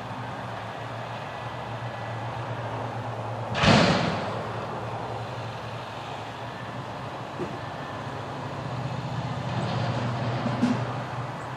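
Front-loader garbage truck's diesel engine running steadily while its hydraulic arms lift a dumpster over the cab. A loud crash comes about four seconds in as the dumpster tips and its load drops into the hopper. A few lighter knocks follow while the engine swells during the shaking out.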